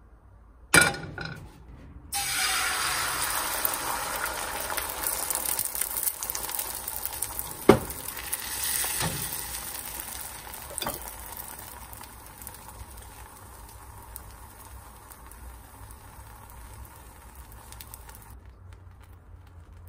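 Food sizzling in a hot frying pan. The sizzle starts suddenly just after a sharp click, is loudest at first and gradually settles, with a few sharp knocks along the way, then cuts off near the end.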